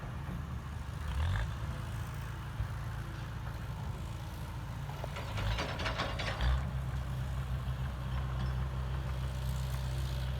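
Heavy diesel engine of earthmoving machinery running steadily, with a rapid metallic clatter about five seconds in, after which the engine note grows stronger.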